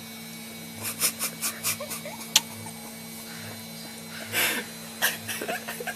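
A baby's short squeaks and small mouth clicks while tasting lemon, over a steady low hum, with a sharp click a little over two seconds in.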